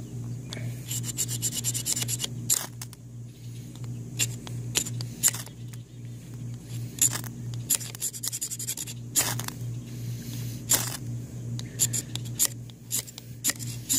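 Knife spine scraping down a ferrocerium fire-starter rod to throw sparks into tinder. There is a quick run of rasping strokes about a second in, then single strikes every second or two, repeated because the tinder is not catching easily.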